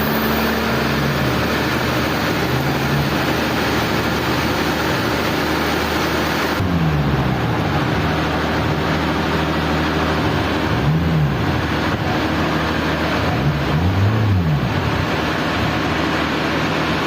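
Sawmill machinery running steadily, a loud even roar with its low hum rising and falling in pitch a few times, as a motor changes speed under load.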